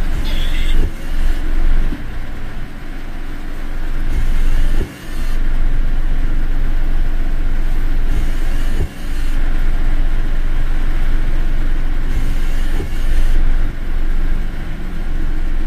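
Steady low rumble and hiss of a car driving, road and engine noise heard throughout, with two brief dips about five and nine seconds in.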